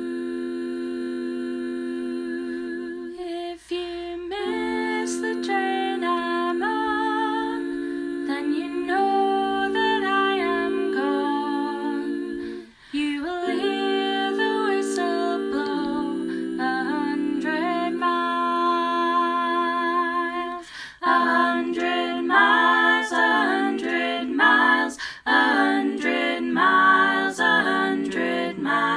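A cappella singing by one woman's voice overdubbed in four parts: the parts hum a sustained chord, then move through changing harmonies. From about three-quarters of the way through, the voices come in louder with sung words and faster-moving parts.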